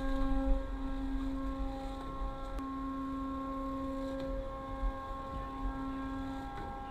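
Steady hum of a ship's deck machinery, one tone with several evenly spaced overtones, over a low, uneven rumble of wind on the microphone.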